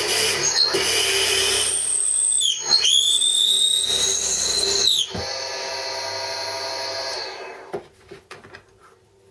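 Drill press running with a steady motor hum, its bit boring into a wooden dowel with a high cutting whine from about half a second to five seconds in. The motor then runs free and stops about seven seconds in, followed by a few light knocks.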